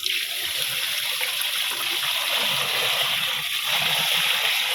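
Fresh water pouring steadily into the tub of a mini portable semi-automatic washing machine, filling it for the rinse after the soapy wash water has been drained.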